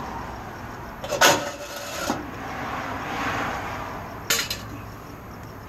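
Stainless steel strainer baskets being handled and set down, clanking: a sharp metal clank with a short ring just past a second in, a lighter one near two seconds, and a quick double knock past four seconds.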